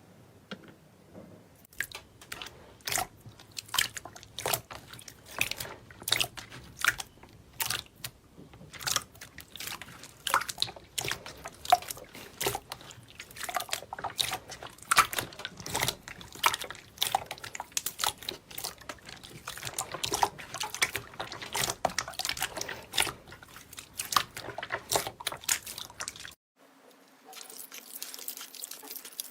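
Slime being squeezed and poked by hand, making many irregular wet clicks and pops. Near the end it cuts abruptly to a softer, steadier rustle with a low hum.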